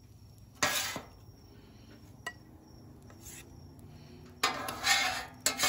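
Metal bench scraper scraping across the steel top of a flat-top griddle, scooping up fried rice: one short scrape about half a second in, then a run of longer scrapes near the end.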